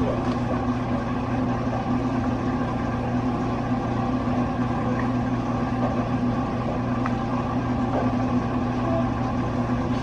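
A machine running with a steady low hum that stays even throughout.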